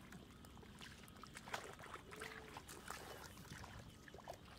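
Faint splashing and sloshing of a hand groping through shallow muddy rice-field water for fish, in short scattered splashes.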